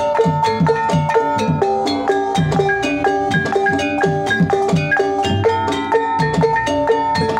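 Banyumasan tayub gamelan music: kendang hand drums play quick strokes whose low tones drop in pitch, over a busy, steady pattern of tuned keyed percussion. A high held note runs under it, drops out about a second and a half in, and comes back near the end.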